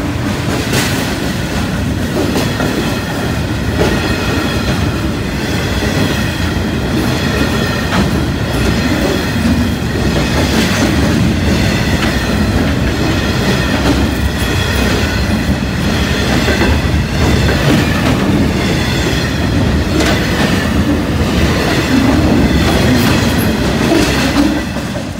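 Freight train hauled by a Class 66 diesel locomotive rolling past at close range: a steady rumble with wheels clicking rhythmically over rail joints and a faint wheel squeal. The noise drops away near the end as the last wagons clear.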